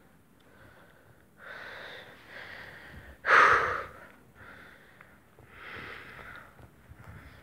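A person breathing audibly close to the microphone: several breaths, the loudest a short, strong exhale a little over three seconds in.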